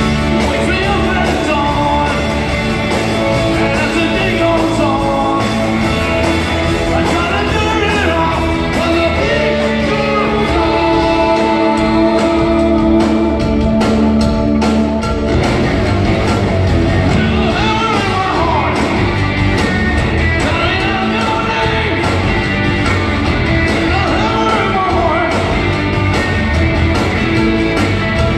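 Rock band playing live: electric guitars, drums and keyboards under a lead singer, heard from the audience in a large hall.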